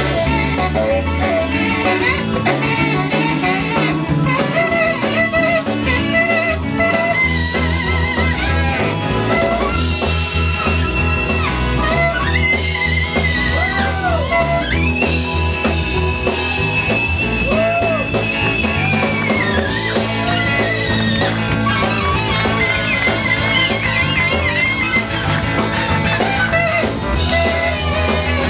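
Saxophone playing a blues solo over a live band, bending and sliding between notes, with one long high note held for about four seconds past the middle.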